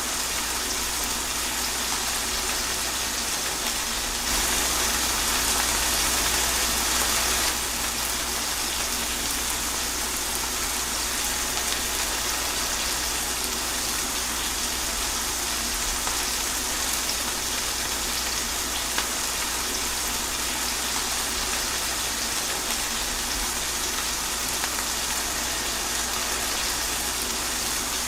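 Steady rain falling, an even hiss of drops, swelling louder for about three seconds shortly after the start before settling back.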